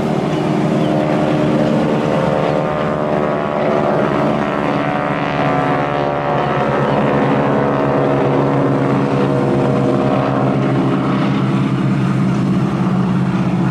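Boeing Stearman biplane's Pratt & Whitney radial engine and propeller droning in a flypast, the pitch shifting as it passes.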